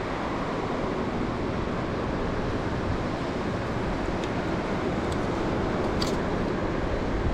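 Steady rush of surf and wind on an open beach. A few faint clicks come about four, five and six seconds in as pliers work the hooks out of a halibut's mouth.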